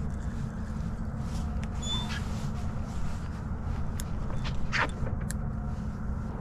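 A steady low motor hum, with a few faint chirps and clicks over it.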